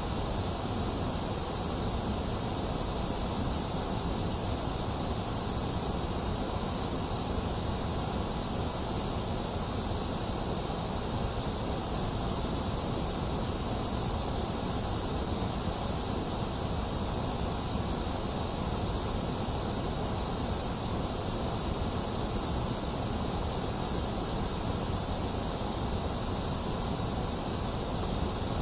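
Box fan running steadily, mixed with rain: an even, unchanging hiss with a low rumble underneath.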